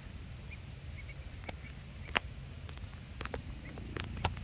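Faint short peeps from a duckling used as live bait, with scattered sharp clicks (the loudest about two seconds in) over a steady low rumble.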